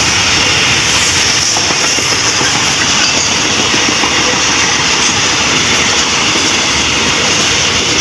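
Container flatcars of a freight train rolling past close by at speed: a loud, steady rumble and rattle of steel wheels on the rails.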